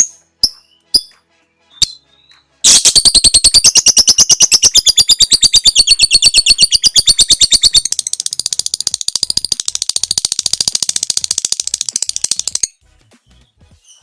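Lovebird's 'ngekek' call: a few short high chirps, then a long, loud chattering trill of rapid, evenly spaced sharp notes lasting about ten seconds. The trill gets a little quieter partway through and stops shortly before the end.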